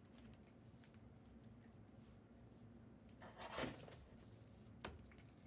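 Near silence with faint handling of trading cards: a brief rustle about three seconds in and a single sharp click near the end.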